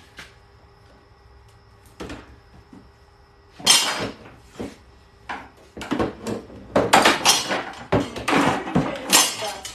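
Hard objects clattering and knocking as they are handled and set down, with a few light clicks at first, a loud clatter about a third of the way in, and a busier run of knocks and rattles through the second half.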